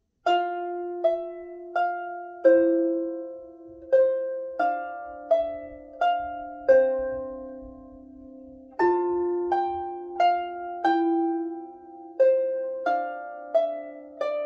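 Camac lever harp playing a slow, easy piece: plucked notes, often two together, about one to two a second, each left to ring on into the next.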